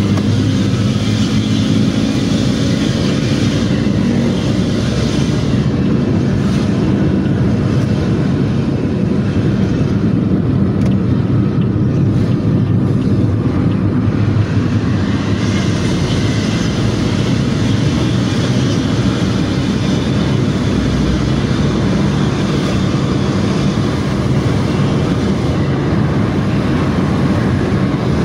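Intercity bus engine and exhaust running with a loud, steady drone, heard from inside a car following close behind, with road noise under it.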